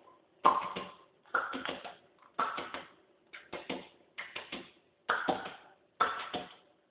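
Husky eating dry kibble from a stainless steel bowl: crunching and clinking against the metal in short sharp bursts, about one a second.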